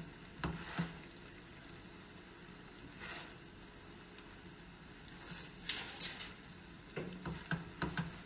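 Fried rice being stirred and turned with a spatula in a large stainless steel pan: a few brief scrapes and shuffles of rice, more of them close together near the end, over a faint steady sizzle.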